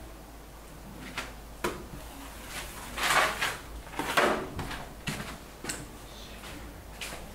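Short rubbing and scrubbing strokes against a wall surface: a few light strokes, then two louder, longer ones about three and four seconds in.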